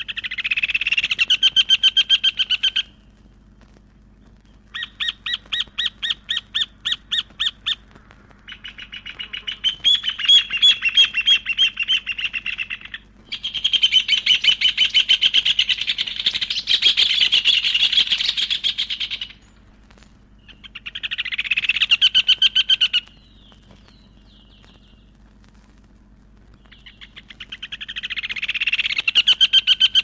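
Rufous hornero song: six bouts of rapid, evenly repeated high notes, each lasting two to six seconds, with short pauses between them.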